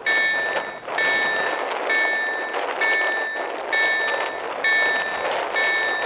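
KLD-4103 level-crossing warning bells of an SPA-1 ZWUS automatic crossing ringing, a bright multi-pitched ding repeated about once a second, the warning that a train is approaching. A steady rushing noise runs underneath.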